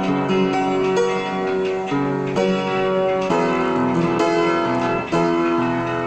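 Instrumental music on a plucked string instrument, its notes ringing on and overlapping, with a new note or chord about every second.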